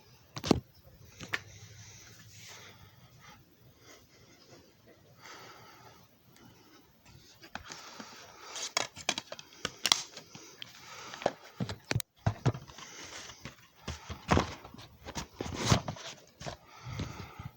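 Irregular clicks, knocks and rustling of objects being handled, sparse at first and busier in the second half.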